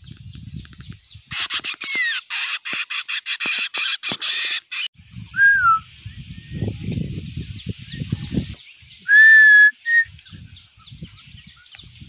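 Crested black songbird singing a fast run of clicks and falling whistles, then a pause with a low rumble. About nine seconds in comes one long, clear whistle, followed by a short note.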